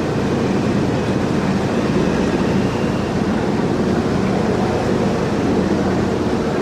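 Heavy diesel engine of an AAV amphibious assault vehicle running steadily, a constant loud drone with no change in pitch.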